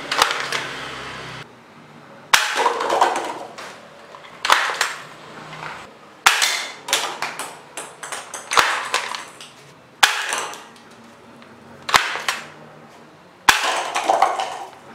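Plastic toy sniper rifle shooting darts, a sharp spring-driven snap about every two seconds, about eight shots in all. Each shot is followed by a short clatter of the paper-cup targets being hit.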